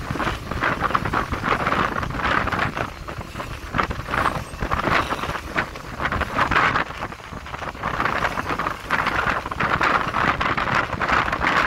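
Wind rushing over the microphone of a moving motorcycle, over a low road and engine rumble, gusting up and down.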